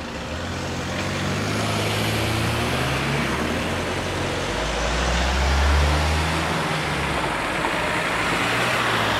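Cars driving over a level crossing on wet asphalt: engines running and tyre noise on the wet road, swelling as a car passes close about five to six seconds in.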